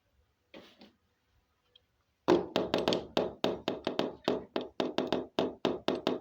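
Rapid, even knocking on a hard surface, about four or five knocks a second, starting about two seconds in and going on for about four seconds.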